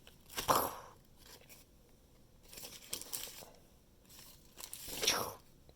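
Sandwich wrapper crinkling and tearing as a fried chicken sandwich is pulled out of its packaging, in three bursts: about half a second in, around three seconds in, and near the end.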